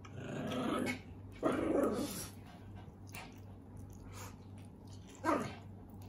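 A person slurping and chewing spicy instant ramen noodles off a fork, in three slurps: two longer ones in the first two seconds and a short, sharp one near the end.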